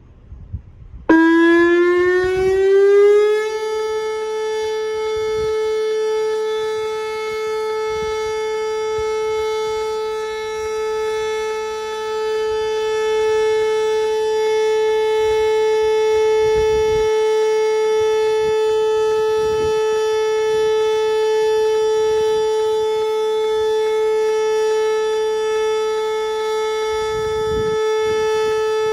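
Outdoor tornado warning siren starting about a second in, rising quickly in pitch for a couple of seconds, then holding one loud, steady tone: a steady alert signal.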